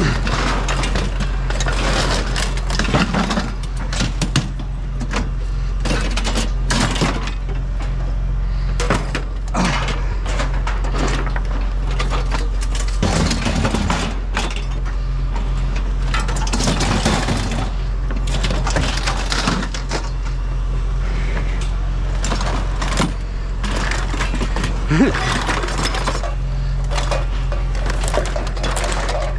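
Irregular clanks, knocks and rattles of scrap being handled, over a steady low engine hum.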